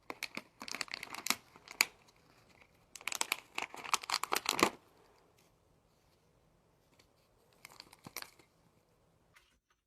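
Crinkling, crackly rustling in three bouts: two of a couple of seconds each, then a short one near the end.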